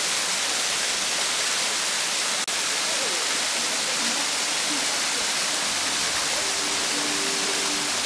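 Small waterfall on a mountain creek, several thin streams falling over a mossy rock face: a steady, even hiss of falling and splashing water.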